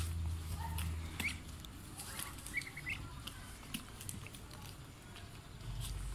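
Young Muscovy ducks pecking grain from a bare hand: many quick beak clicks and taps, with a few short high peeping calls in the first three seconds.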